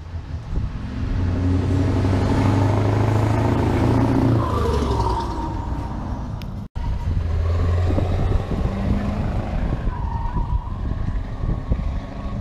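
Scania R580's 16.4-litre V8 diesel engine, pulling a tanker past at speed: it grows louder as the truck approaches, and its pitch slides down as it passes about four to five seconds in. After a short break the V8 is heard again, with wind buffeting the microphone.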